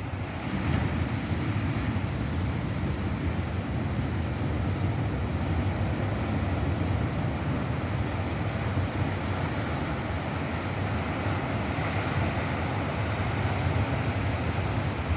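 Ocean waves crashing on the shore: a steady, continuous rush of surf with a strong low rumble.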